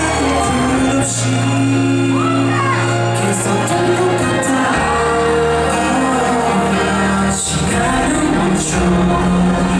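A vocal trio of two women and a man singing a pop cover into microphones over an instrumental backing. Held bass notes under the voices change about a second in and again near the middle.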